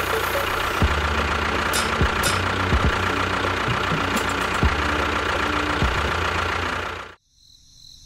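Small engine-like motor running steadily with scattered sharp knocks, cutting off abruptly about seven seconds in.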